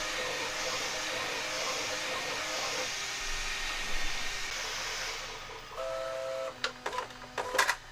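FDM 3D printer running: a steady hissing rasp that swells in a regular pulse, then near the end short steady motor whines at a fixed pitch and a few sharp clicks.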